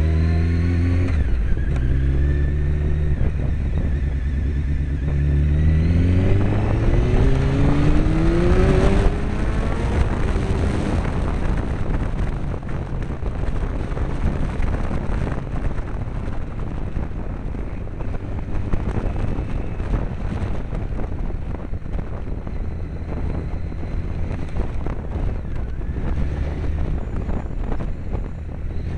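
1998 Honda CBR900RR Fireblade's inline-four engine heard from on board: low, steady revs for the first few seconds, then revs climbing about six to nine seconds in, after which engine and wind noise merge into a steady rush at speed.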